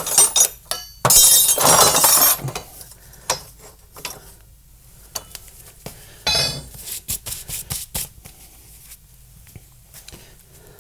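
Pieces of scrap steel clinking and clattering as they are handled and shifted, with a loud clatter about a second in and another, ringing one around six seconds in, between scattered small clinks.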